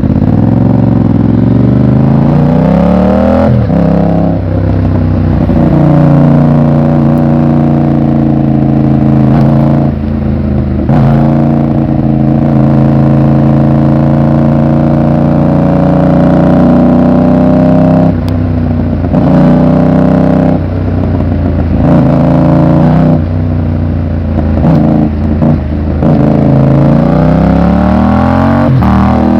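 Yamaha MT-07's parallel-twin engine pulling up through the gears. Its pitch rises, then drops at each shift. It holds a fairly steady speed for several seconds mid-way, then climbs again near the end.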